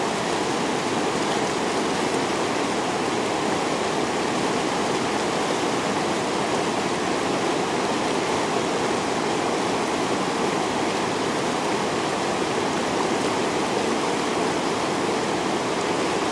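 Fast mountain river rushing steadily, an even, unbroken noise of turbulent water.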